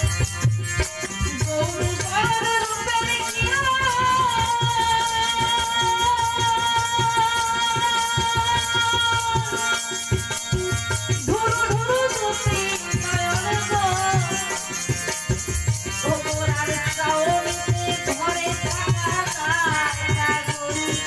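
A Baul folk song played loud through a PA sound system: a singer holds a long wavering note, then sings bending phrases over a steady low drum beat and a continuous shaker-like rattle.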